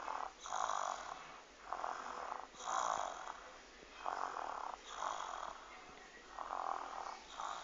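Baby snoring in sleep: short, breathy snores about once a second, some coming in quick pairs.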